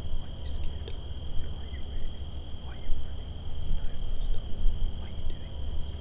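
Outdoor insect chorus: an unbroken high trill in two steady tones over a low rumble, dotted with small clicks and short chirps.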